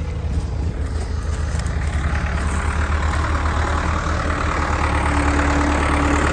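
A vehicle engine running steadily at low revs, with a rising noisy layer building from about two seconds in.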